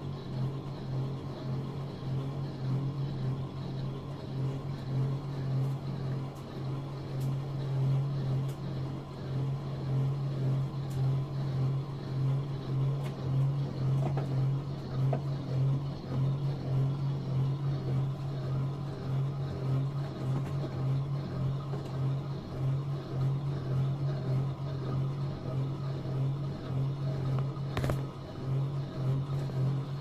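Brandt washing machine running mid-cycle: a steady low motor hum with a slight regular wavering, and one click near the end.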